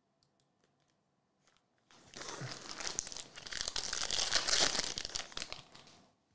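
The foil wrapper of a 2023-24 Panini Mosaic basketball card pack being torn open and crinkled by hand, starting about two seconds in and lasting about four seconds.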